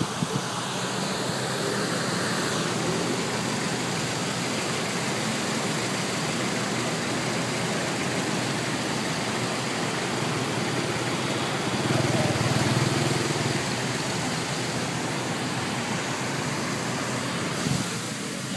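Steady city traffic noise of running engines, heard from a car in traffic. About twelve seconds in, a louder low engine rumble swells for a second or two, then settles back.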